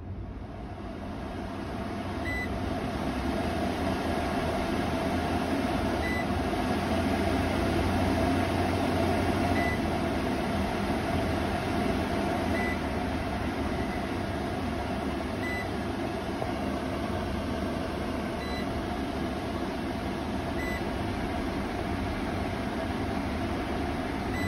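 Kitchen range hood's extractor fan running with a steady rush of air, growing louder over the first several seconds and easing a little after about halfway as the speed is changed. Short electronic beeps from the touch-control panel sound about eight times, once with each button press.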